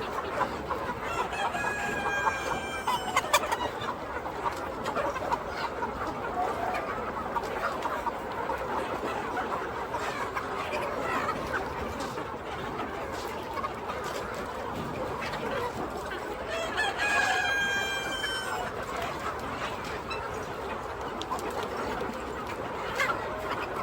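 A flock of chickens clucking steadily, with a rooster crowing twice, once about two seconds in and again about seventeen seconds in.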